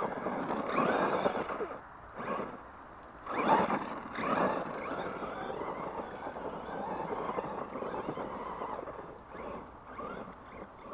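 Brushless 1/10-scale RC monster truck driving on loose dirt, running on a 3S LiPo: bursts of electric motor whine and tyre scrabble as it accelerates, loudest about a second in and again around three and a half to four and a half seconds in, settling to a steadier, fainter run.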